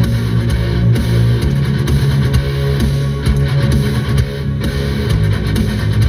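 Loud rock music with electric guitar and bass guitar, the bass holding long low notes that change pitch every second or so.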